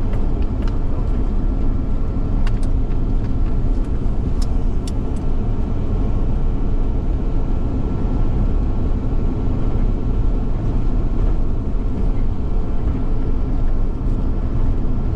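Road and engine noise heard from inside a moving car: a steady low rumble with a faint constant high tone, and a few light clicks in the first five seconds.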